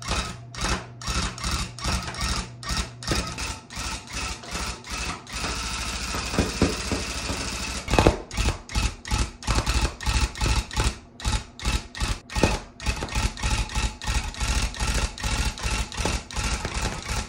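Electric cut-pile tufting gun running as it punches yarn into the stretched canvas. It comes in short stop-start bursts, about two to three a second, with one longer unbroken run in the middle.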